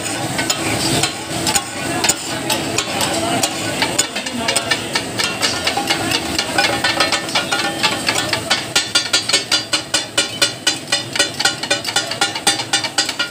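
Katakat being made: steel spatulas chop and clatter on a large flat griddle over the sizzle of frying offal. The metal-on-metal clacking becomes a fast, even beat of about five strikes a second in the second half.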